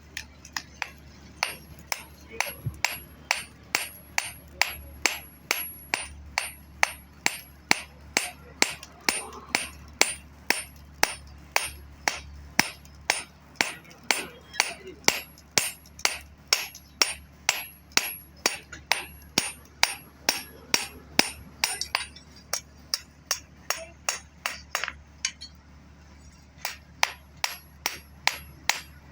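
Hand-hammer blows on metal at an anvil while forging a sickle blade. The strikes are steady and sharp-ringing, a little over two a second, with a brief pause a few seconds before the end.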